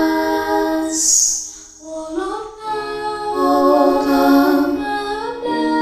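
Unaccompanied vocal group singing a hymn in close harmony. A held chord ends with a short hiss about a second in, and after a brief dip the voices glide up into a new sustained chord without clear words.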